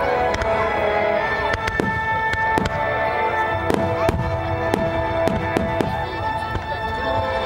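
Aerial fireworks shells bursting one after another, about two sharp bangs a second, with booms and crackle between them.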